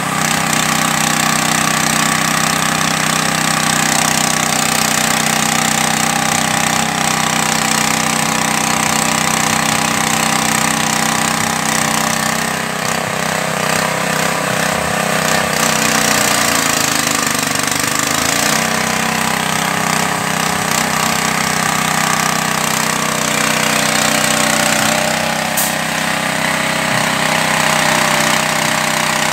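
Small air-cooled engine driving a floating fish-feed pellet extruder, running steadily with a rattling drone. About sixteen seconds in its pitch sags briefly and then recovers.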